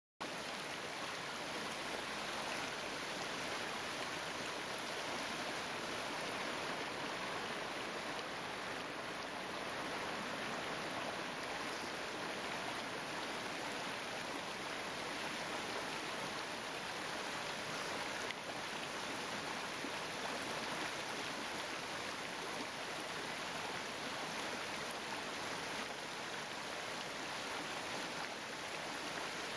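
Small mountain stream tumbling over rocks in little cascades: a steady rush of running water that cuts in abruptly at the start.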